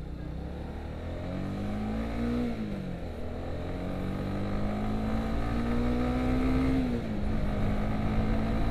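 Honda CBR150R's single-cylinder engine accelerating through the gears, heard from the rider's seat. Its pitch climbs and drops at an upshift about two and a half seconds in, climbs again more slowly, drops at a second upshift near the end and then holds steady, over a low wind and road rumble.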